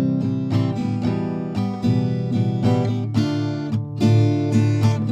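Background music played on a strummed acoustic guitar, with regular chords.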